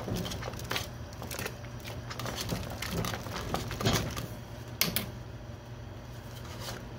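Wire whisk stirring liquid in a large aluminium pot, with scattered clicks and taps as the whisk knocks against the pot's side, over a steady low hum.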